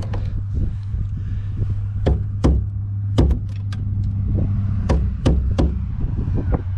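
Sharp clicks and knocks from handling the parts and screws of a bus door latch during reassembly. About nine separate strikes are scattered over a steady low rumble.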